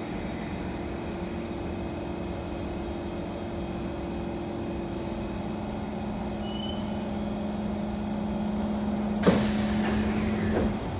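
Kawasaki C151 metro train slowing to a stop at the platform, with a steady low electric hum from its running gear. About nine seconds in a sudden sharp burst is heard as the train halts and its doors release and slide open.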